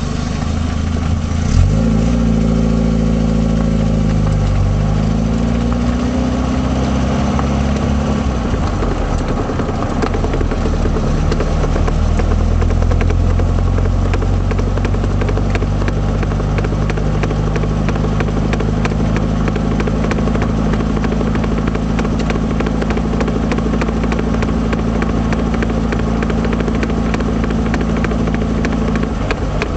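1978 Triumph Spitfire's four-cylinder engine running, its revs dipping and climbing again about four to five seconds in, then holding steady. Under it, from about twelve seconds on, a rapid, regular knocking comes from the rear: the sign of a failed passenger-side rear axle universal joint.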